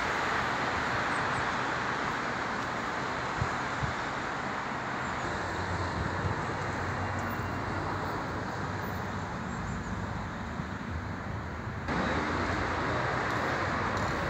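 Steady hum of road traffic, with a sudden change in the noise about twelve seconds in.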